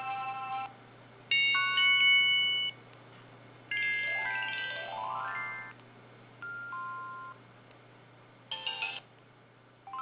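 MS200 mobile phone's built-in alert and notification tones played one after another, each a short electronic chime: one about a second in, a quick run of rising notes near four seconds, then two shorter chimes, with quiet gaps between them.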